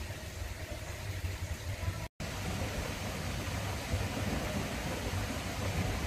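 Steady hiss of hot-spring steam venting from a rooftop tank, over a low rumble. The sound cuts out for an instant about two seconds in and comes back slightly louder.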